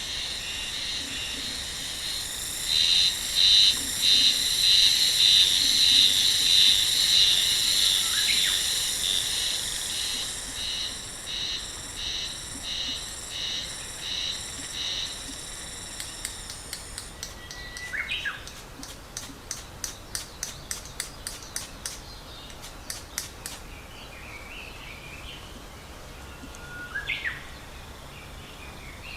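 Insects calling in rhythmic, pulsing high-pitched trills, loudest in the first half, then a faster, thinner clicking pulse. A few short rising bird chirps come in three times.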